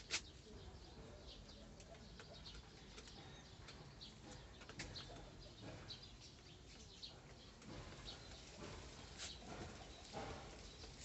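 Faint scattered cheeping of young caged poultry, with a click just after the start and soft rustling and knocking later on.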